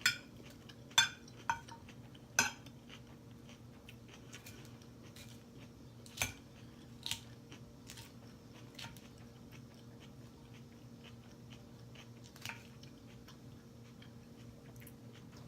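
Close-miked eating: scattered sharp clicks of cutlery against a dish, most of them in the first few seconds, with soft chewing and faint crunching in between, over a steady low hum.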